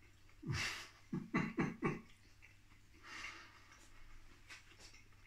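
A man's wordless sounds of enjoyment while eating: a falling groan about half a second in, then four short hums in quick succession, then a soft breath out.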